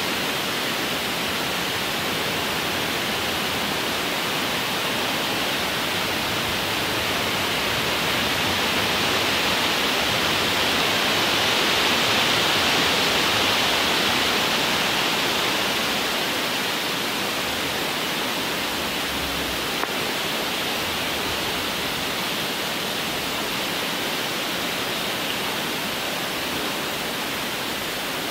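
Steady wind rushing through leafy trees, building to a stronger gust about eight seconds in and easing off again by about sixteen seconds. A single faint click comes near twenty seconds.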